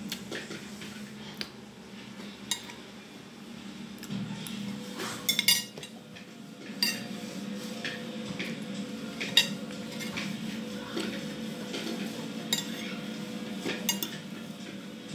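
Metal spoon and fork clinking and scraping against a ceramic plate during a meal, in scattered clinks with the loudest about five and a half seconds in, over a faint steady hum.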